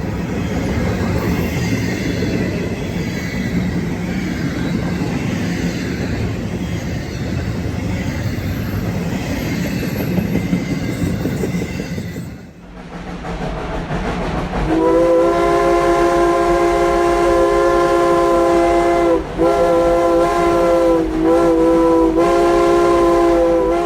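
A train rolling past with a steady rumble and rail noise. After a sudden break about halfway, a locomotive air horn sounds a long chord of several notes, dipping briefly twice near the end.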